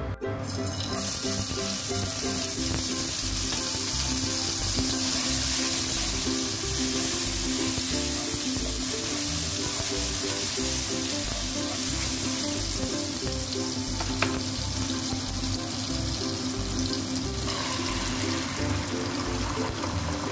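Chopped garlic and red chilli sizzling steadily in hot oil in a nonstick wok, starting about a second in as they hit the oil, while being stirred with a spatula. One sharp tick from the utensil against the pan comes late on. Background music plays throughout.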